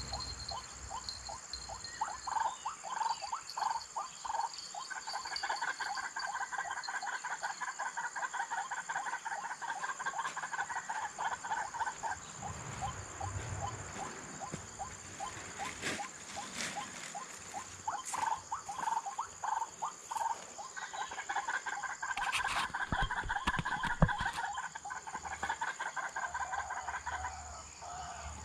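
White-breasted waterhen calls played through a speaker as a lure: two long runs of rapid, repeated croaking notes, one from about two seconds in to about twelve, and another from about eighteen seconds to near the end. A steady high insect drone runs underneath, with a few sharp clicks in the middle.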